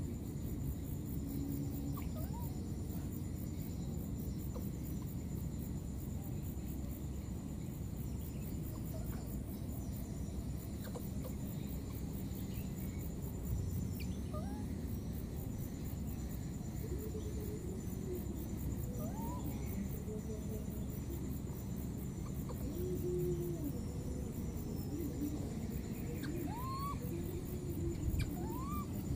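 Insects, crickets or cicadas, trilling steadily at a high pitch over steady low background noise. A few short rising squeaks or chirps come through, most near the end.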